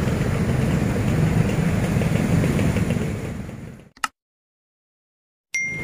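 Motorcycle and scooter engines idling in stopped traffic, fading out about three and a half seconds in. A click and a moment of silence follow, then a short high electronic tone starts near the end.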